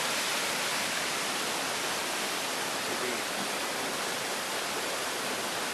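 Waterfall on the Temperance River: a steady, unbroken rush of falling water.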